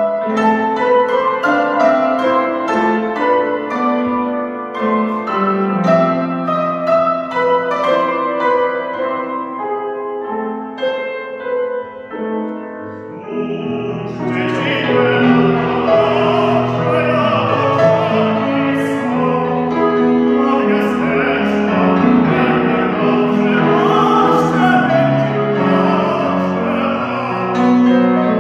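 Grand piano playing a solo introduction to an operatic aria; about halfway through, a tenor voice enters and sings in full operatic style over the piano accompaniment.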